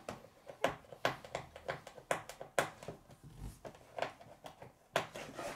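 Fingers picking and scratching at the tuck flap of a cardboard toy box to pry it open: an uneven string of small clicks and scrapes, with a few sharper snaps.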